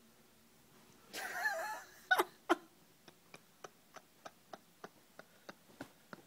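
A loud snore, a single snorting breath lasting under a second, then two sharp knocks and a run of evenly spaced ticks, about three a second.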